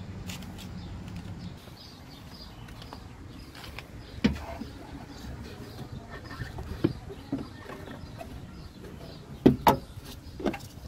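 Scattered clicks and knocks of metal parts being handled as the wiper motor and linkage assembly is worked loose from the cowl, with a cluster of sharper knocks near the end.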